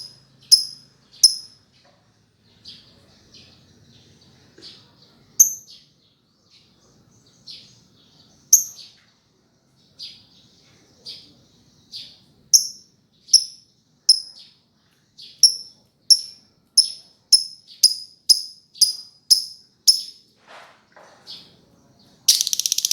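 Lovebird giving a long series of sharp, high chirps, single notes about two or three a second broken by short pauses, then near the end breaking into a fast, continuous rattling trill.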